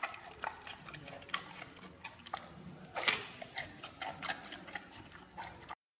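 Giant panda chewing bamboo: irregular crisp crunches and clicks, the loudest about three seconds in, cutting off abruptly near the end.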